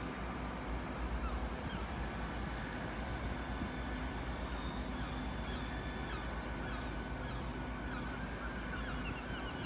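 Low, steady rumble of a departing diesel multiple unit's engine fading into the distance, with birds calling in short high chirps over it, more of them near the end.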